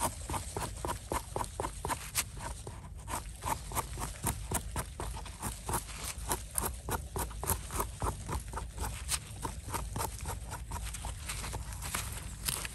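A small knife blade scraping soil and debris off the stem base of a bolete mushroom, in quick short strokes repeated a few times a second.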